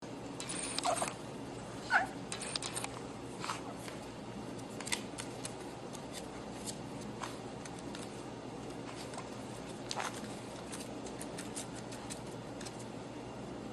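Scattered light clicks of a puppy's paws pressing the keys of a laptop keyboard as it walks across it, the sharpest about two seconds in.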